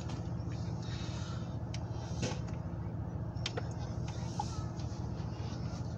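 Steady low hum of an idling diesel locomotive, with a few faint ticks and knocks.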